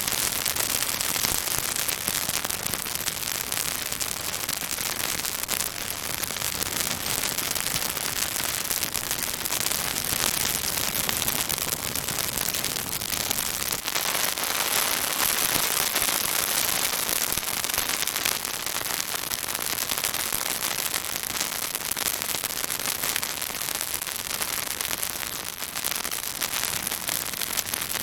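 Pine branches burning in a bonfire, crackling and sizzling: a dense, unbroken stream of small snaps and pops over a hiss.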